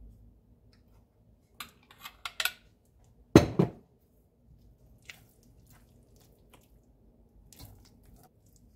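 Metal spoon clinking and knocking against a frying pan: a few light clicks, then a sharp double knock about three and a half seconds in. A softer bump of stirring near the end.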